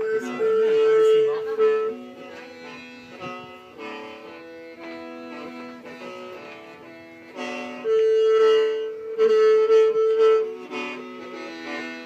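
H'Mong khen (qeej), a bamboo free-reed mouth organ, playing a tune of long held notes with several pitches sounding at once, swelling louder and softer.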